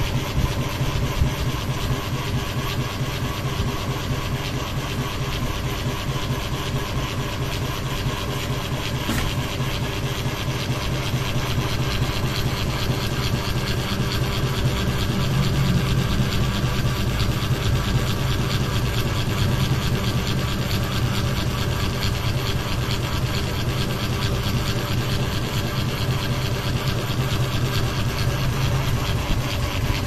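Wobbling ceiling fan running steadily, with a fast, even rattle over a low hum: noise from the fan being out of balance.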